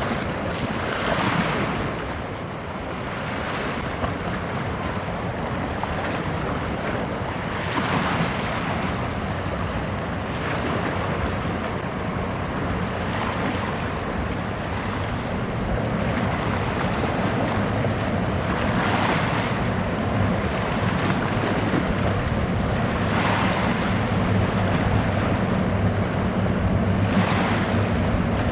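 Wind buffeting the microphone over the sound of water, swelling in gusts every few seconds. A low steady drone from the passing cement carrier's engine grows stronger in the second half.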